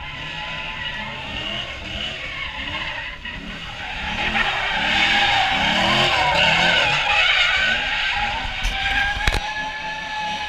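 A car doing donuts: its tyres screech on the asphalt while the engine is revved up and down over and over, the note rising and falling about every half second to second. It grows louder about four seconds in. A single sharp crack sounds near the end.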